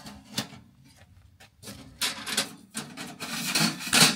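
Metal stove pipe sections scraping and rubbing as they are slid out of a portable camping wood stove: a run of rasping scrapes from about two seconds in, loudest near the end.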